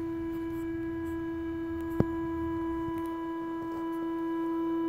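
Teknic ClearPath servo motor on a CNC router's Y axis giving off a steady, pitched hum while holding position, with a single sharp click about two seconds in. The hum comes from the servo's fine-tuning being set toward stiffness rather than quietness, so the motor works harder to hold position.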